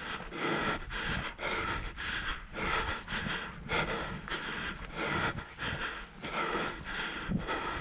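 A hiker breathing hard from exertion, panting in and out in a quick, even rhythm of about one to two breaths a second.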